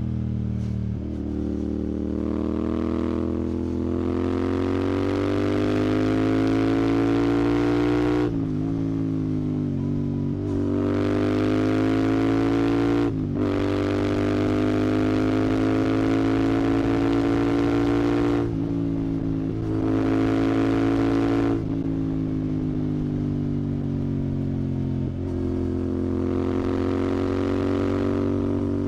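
Royal Enfield Continental GT 650's 648 cc parallel-twin running through an aftermarket Red Rooster exhaust as the bike is ridden. The engine note climbs slowly under throttle, with several short drops where the rider shifts gear or rolls off, then pulls up again.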